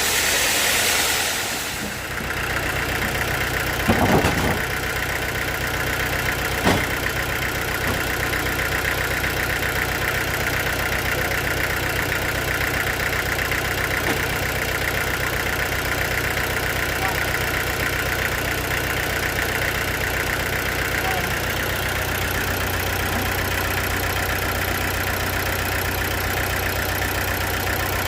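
An engine running steadily at idle. A loud hiss dies away about two seconds in, and two knocks sound, one about four seconds in and one near seven.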